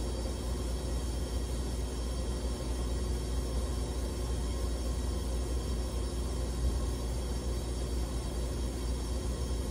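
Steady low hum of industrial plant machinery, with a few faint steady tones above it.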